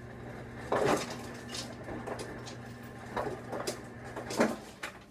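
A few knocks and rustles of objects being handled on a kitchen counter, the loudest about a second in and again near the end, over a steady low hum.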